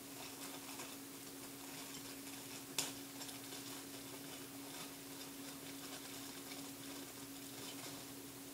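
Faint clicks and rattles of an action-camera bicycle mount being handled and unpacked, with one sharp click about three seconds in, over a steady hiss and low hum of recording static.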